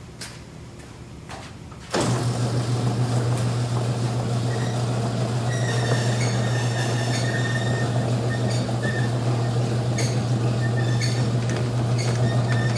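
Electric garage door opener starting about two seconds in and running steadily, its motor humming as the ribbed metal garage door rolls along its track with a rattle and occasional squeaks and clicks.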